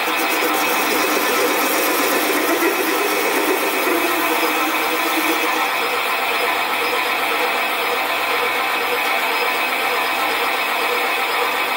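Sieg SC4 bench lathe running steadily with the flywheel spinning in the chuck, while a high-speed steel tool turns down the end of the flywheel's boss: steady motor and gear whine with the sound of the cut.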